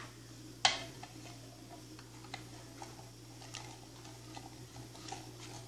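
Spoon stirring strawberry gelatin into hot water in a small aluminium saucepan, tapping against the pan in a string of faint, irregular ticks, with one sharper knock just under a second in.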